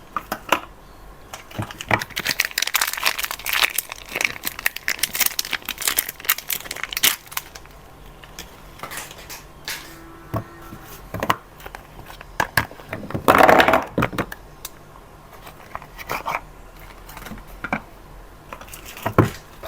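Soap packaging crinkling and being torn open by hand: dense crackling for several seconds, then scattered crinkles, with one louder tear about two-thirds of the way through.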